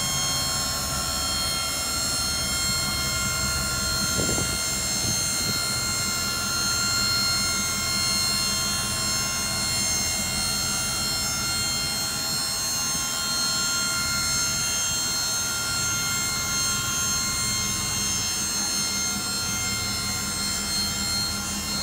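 Electric-hydraulic dump hoist pump running with a steady whine as the dump bed lowers.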